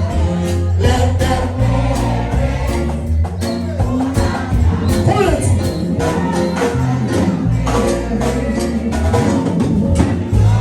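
Gospel music with a steady beat and a moving bass line, with a voice singing over it.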